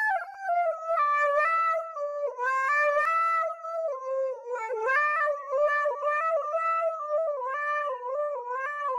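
A single reedy wind instrument playing a slow melody of held notes that step up and down.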